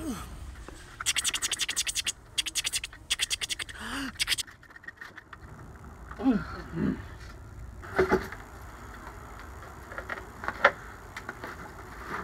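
Rapid rasping scrapes, a quick run of strokes from about a second in to about four seconds, as a large bonsai's root ball is worked loose against the inside of its pot. Short grunts of effort from the men follow.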